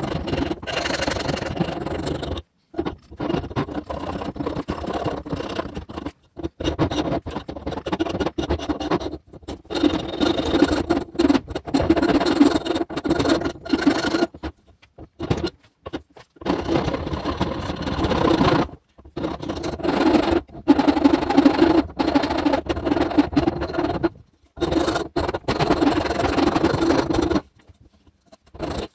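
A small electric power tool running and working wood, in a string of short bursts several seconds long separated by abrupt breaks.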